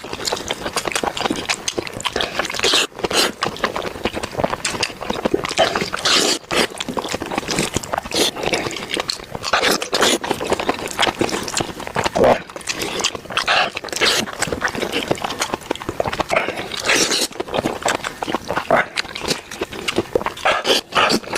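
A man eating a sheep's head: irregular chewing, sucking and smacking sounds as he works meat off the head, with no steady rhythm.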